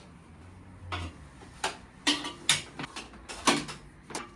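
A run of irregular clicks, knocks and clatters from office equipment and cables being handled and moved around, about eight in all, starting about a second in.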